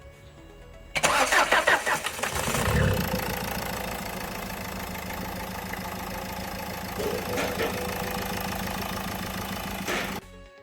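Renault Duster diesel engine cranked by the starter for about a second and a half, then catching, briefly rising and settling into a steady idle, with a freshly replaced injector sealing washer curing the long-crank starting problem.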